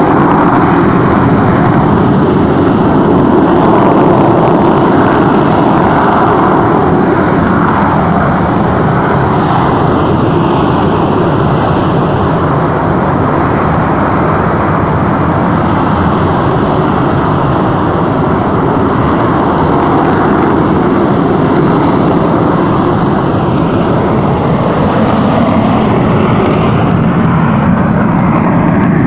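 Mount Bromo's volcanic crater giving off a loud, steady rumble of escaping gas, a continuous roar much like a distant jet engine.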